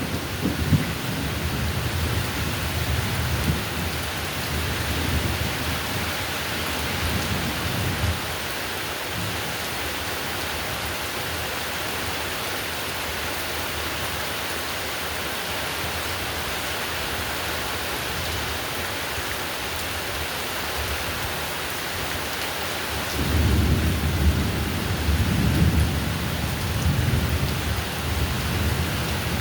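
Steady heavy rain with thunder rumbling. A rumble fades away over the first several seconds, and another rolls in abruptly near the end and carries on.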